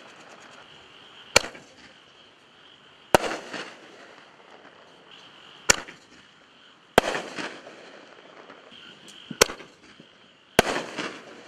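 1.75-inch SFX Magnum Artillery ball shells fired from a mortar tube, three in turn. Each is a sharp launch thump followed a second or so later by the bang of the shell bursting, which rumbles and echoes away. A steady high chirring runs underneath.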